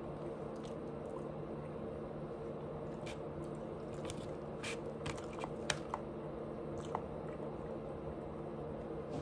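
A person chewing close to the microphone, with scattered wet mouth clicks and smacks, most of them in the middle of the stretch, over a steady low hum.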